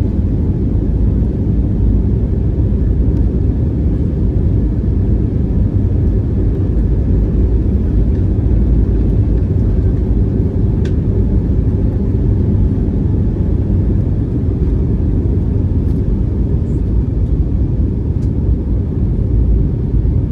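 Steady low rumble inside the cabin of an Airbus A321neo climbing shortly after takeoff: engine and airflow noise with no change in level.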